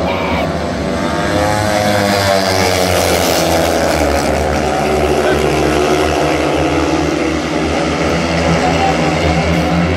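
Speedway motorcycles' single-cylinder methanol engines running as the bikes circle the track; their pitch rises and falls as they pass close by in the first few seconds. A steady low hum lies underneath.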